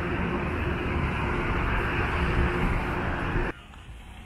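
Steady street traffic noise with a faint hum, cut off abruptly about three and a half seconds in and replaced by much quieter outdoor background.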